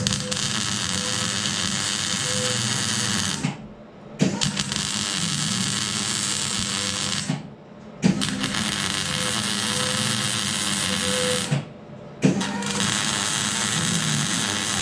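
Electric arc welding on steel rectangular tube: a steady crackling buzz in four runs of a few seconds each. Each run starts with a sharp crack as the arc strikes and stops suddenly, with short pauses between.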